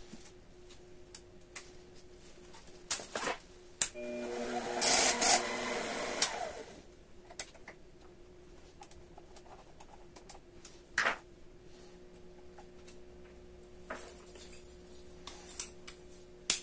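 Small bench lathe running with a steady motor hum while thin aluminium discs are worked on it. About four seconds in there are roughly three seconds of louder scraping as a tool bears on the spinning discs. Sharp clicks of tools and parts being handled come through the rest.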